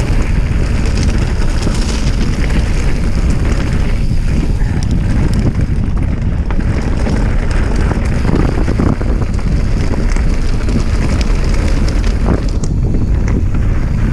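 Mountain bike descending fast over a rocky, stony trail: wind buffets the microphone in a steady low rumble, with the bike rattling and knocking now and then over the stones.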